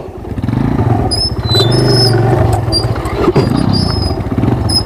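Motorcycle engine running steadily at low revs, with short high-pitched squeaks coming and going over it.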